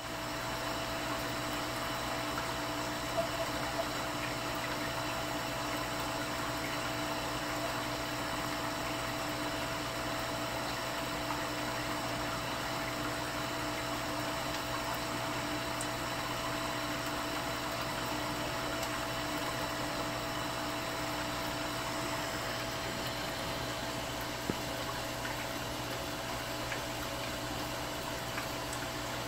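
Air-driven aquarium sponge filter bubbling steadily over a constant hum, with a couple of small taps, one about 3 seconds in and one near the end.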